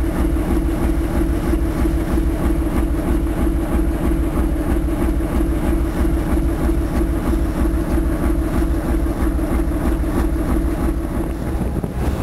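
Boat engine running steadily under way, a rapid low throb under a steady hum, heard from aboard the boat.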